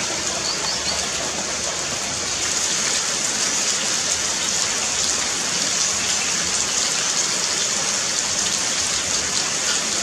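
Heavy rain falling steadily, a dense even hiss of drops.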